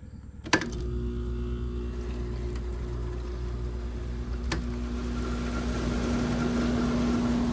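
GE 5,000 BTU window air conditioner switched on with a click about half a second in, then running with a steady hum from its compressor and a rushing fan that grows slightly louder; a faint higher tone joins about five seconds in.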